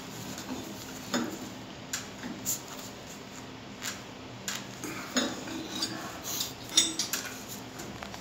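Light, irregular clicks and knocks as a wooden turning bar with two pegs is worked around a grey cylindrical adapter bolted to a metal plate, turning it on its seat. There are about a dozen short taps, with the sharpest coming near the end.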